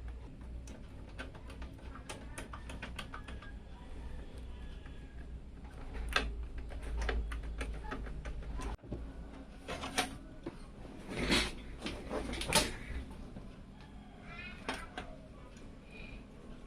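Irregular small clicks, taps and knocks of computer case parts and screws being handled during a PC build, over a low steady hum, with a few louder clattering handling noises around the middle.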